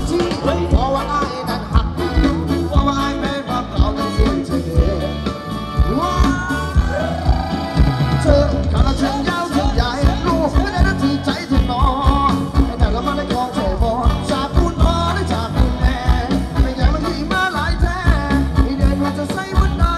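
Live band playing Thai ramwong dance music, with a steady drum-kit beat and a sung melody over it.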